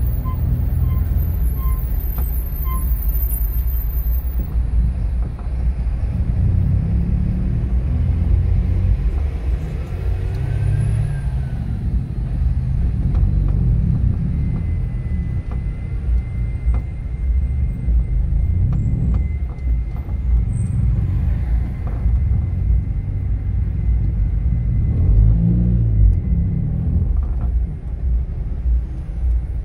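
Car driving through city streets: a steady low rumble of engine and road, with the engine pitch rising and falling three times as it speeds up and slows.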